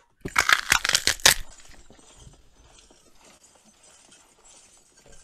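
Foley bone-crunching: celery stalks snapped and twisted in a rapid run of loud cracks over the first second and a half, standing in for a body being crushed. Faint rustling and crackling follow.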